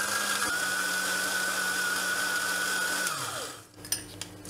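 Electric countertop blender running at steady speed, pureeing strawberries with mint leaves, with a constant motor whine. About three seconds in it is switched off and winds down, the whine falling in pitch, followed by two light knocks.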